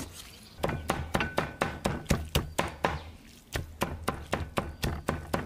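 A knife rapidly chopping raw pork shoulder meat on a cutting board, mincing it for meatballs: quick even strikes about five a second, with a brief pause a little past halfway before the chopping resumes.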